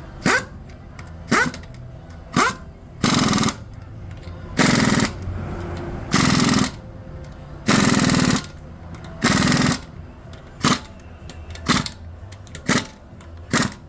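Impact wrench running in about a dozen separate bursts, some short and some up to about a second long, driving the wheel's lug nuts tight.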